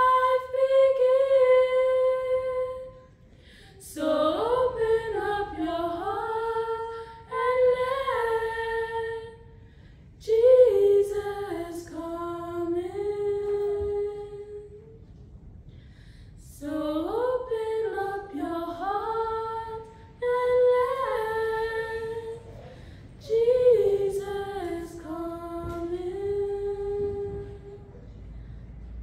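Women's voices singing a slow song a cappella, in phrases of a few seconds with short breathing pauses between them.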